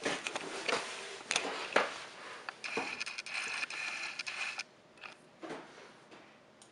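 Handling noise of a handheld camera being carried and repositioned: rustling and scraping with scattered sharp clicks. A steady high hiss runs for about two seconds in the middle, and the last couple of seconds are quieter.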